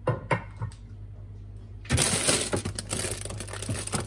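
Rummaging in a refrigerator's crisper drawer: a few light clicks and knocks, then from about two seconds in a busy stretch of rustling and clattering as plastic-bagged vegetables and containers are moved about.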